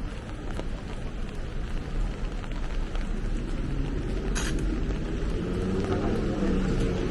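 Rainy city street ambience: a steady wash of rain and traffic noise with a low rumble, a short hiss a little past halfway, and a vehicle engine hum growing louder near the end.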